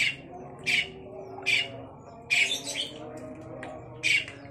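Long-tailed shrike (cendet) calling in full voice: a quick series of short, harsh, rasping squawks, about one every three quarters of a second, one drawn out a little longer about two and a half seconds in.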